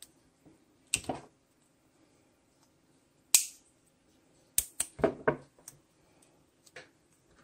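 Electrical tape being pulled off the roll and wrapped by hand around soldered wire joints, with scattered sharp clicks and rasps, and a quick cluster of snips from side cutters just after the middle.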